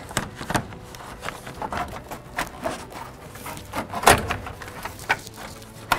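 AC cooling fan's plastic shroud being squeezed into place beside the radiator: a string of light clicks and knocks, the loudest about four seconds in.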